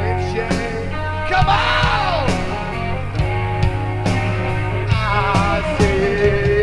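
Live rock band playing a slow song, with no vocals: a lead melody that bends and wavers over a steady bass and regular drum hits, holding a long note near the end.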